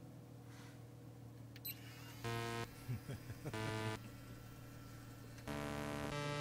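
Motor whine from a Clarion VZ-401 motorized flip-out screen folding closed, running in three short steady-pitched spells of under a second each.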